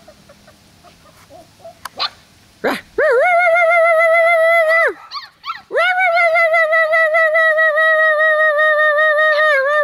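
A puppy whining in two long, steady, high cries, each rising at the start and dropping away at the end; the first lasts about two seconds, the second about five. Two short yelps come shortly before them.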